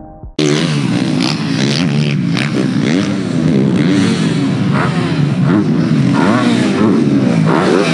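Dirt bike engines revving hard, pitch rising and falling over and over as the throttle is worked, cutting in abruptly about half a second in.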